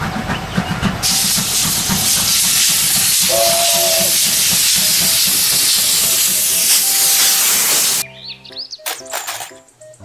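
Steam locomotive chuffing in quick even beats, with a loud, steady hiss of steam taking over about a second in and a short whistle blast around three seconds in. The train sound stops abruptly near the end and gives way to quieter music.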